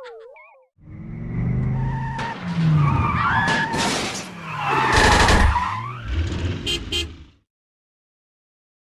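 Logo soundtrack built from stock cartoon sound effects: a wobbling warble dies away, then after a short gap comes a busy run of gliding whistles, sharp bangs and crashes with a heavy low rumble, ending abruptly with a few quick clicks about seven seconds in.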